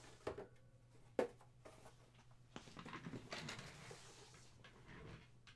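Faint handling and movement sounds: two sharp clicks or knocks in the first second or so, then a few seconds of soft rustling and shuffling as a person moves about and handles things at a table, over a low steady room hum.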